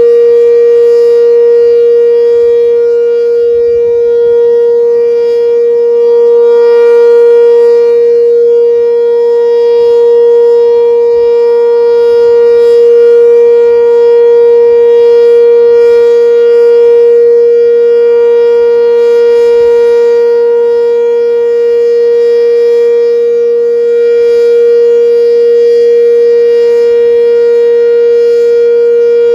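Sentry Siren 7V8, an eight-port omnidirectional outdoor warning siren, sounding its Full Alert steady signal: one loud tone held at a constant pitch, with no rise or fall.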